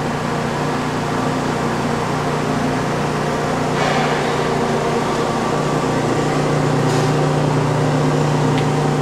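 Steady electrical and mechanical hum of a powered-up CNC lathe from its open electrical cabinet and drives, with a brief rustle about four seconds in.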